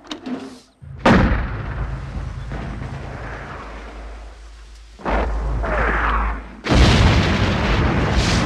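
Artillery shell explosions: three sudden blasts about one, five and nearly seven seconds in, each trailing off in a long rumble. A falling whistle comes shortly before the third blast.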